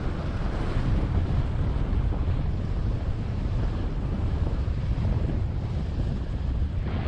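Wind buffeting the microphone of a paraglider's onboard camera in flight: a steady, low rush of wind noise.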